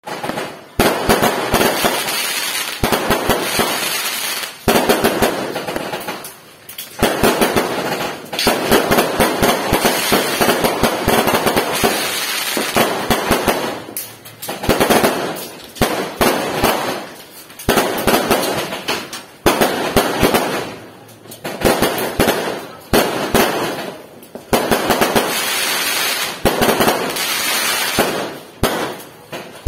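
Fireworks going off in rapid volleys of bangs and crackling, with short lulls every few seconds.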